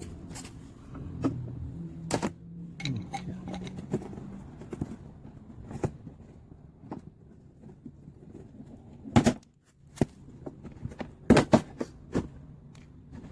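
Irregular knocks and clanks, like hand tools and metal parts being handled during car repair work. The loudest comes about nine seconds in, and a quick cluster follows a couple of seconds later.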